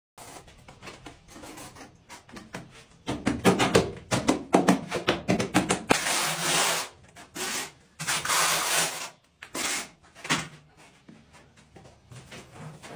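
A trowel scraping and spreading grey tile adhesive over the back of a large tile. Quieter scrapes and taps come first, then a run of short quick strokes, then two long sweeps about six and eight seconds in.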